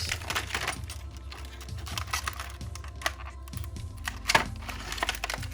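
Small plastic action-figure accessories being handled and set down: an irregular run of light clicks and taps, with one sharper click about four seconds in.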